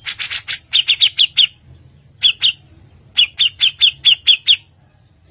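Songbird calling: a quick harsh rattle, then three runs of sharp, falling notes, about five a second, with short pauses between the runs.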